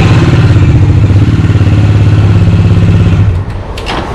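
Bajaj Dominar 400's single-cylinder engine running at a steady idle, with an even pulsing beat, until it drops away about three seconds in; a couple of short clicks follow near the end.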